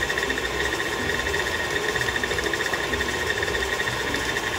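Electric mixer running steadily, beating butter and sugar into cookie dough, a constant whirr with a fine rapid flutter.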